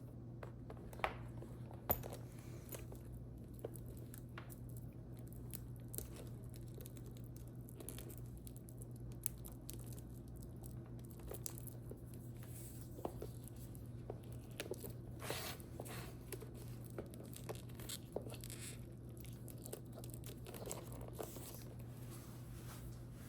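Close-up handling of a leather shoulder bag and its wrapping: scattered small clicks, taps and rustling, with a few longer crinkling rustles, over a low steady hum.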